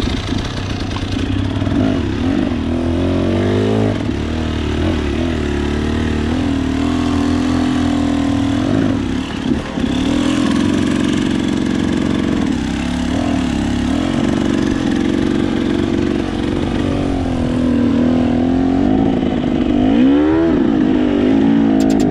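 KTM enduro motorcycle engine worked hard at low speed, its revs rising and falling constantly, with a quick rev-up near the end.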